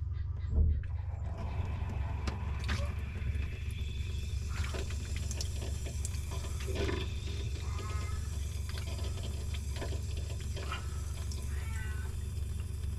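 Water forced under hose pressure into a clogged sink drain: a steady low rumble in the pipes with gurgles, clicks and short squeaky warbles, and a single thump about half a second in.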